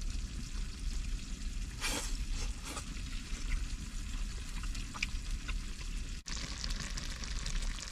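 A pan of stir-fried mutton slices bubbling and sizzling steadily as it heats on a charcoal stove, with a few faint clicks.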